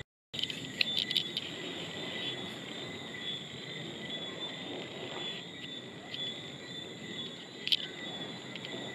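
Nighttime insect chorus, crickets trilling steadily and high-pitched, with a few sharp clicks about a second in and near the end. The sound cuts out for a moment at the very start.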